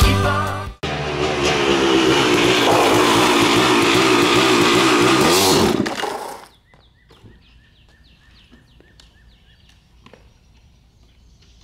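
Dirt bike engine running loudly as the bike pulls away, rising briefly in pitch and then cutting off abruptly about six seconds in. Afterwards only faint bird chirps and small ticks remain.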